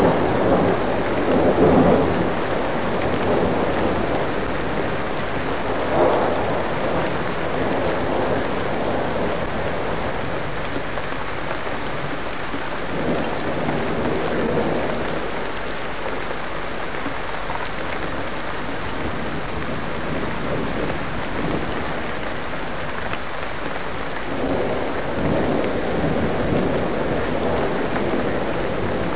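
Heavy rain falling steadily in a thunderstorm, with thunder rumbling several times, swelling and fading, loudest at the start.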